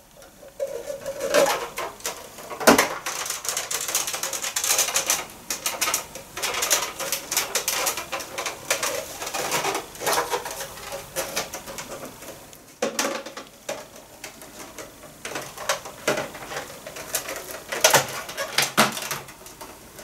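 Plastic clicks, knocks and rattles as the parts of a Kitfort KT-581 stick vacuum are handled and fitted back together, with a few sharper clicks; the vacuum's motor is not running.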